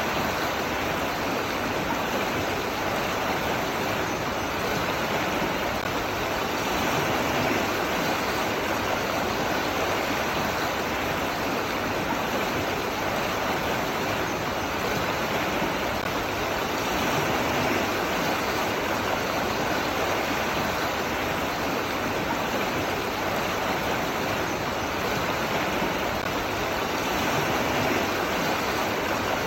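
Running water rushing steadily, an even unbroken hiss with no change in level.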